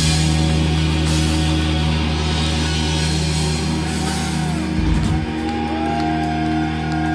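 Live rock band letting a distorted electric guitar chord ring out over bass and cymbal wash at the end of a song. There is a drum hit about five seconds in, and a high guitar tone slides up and holds near the end.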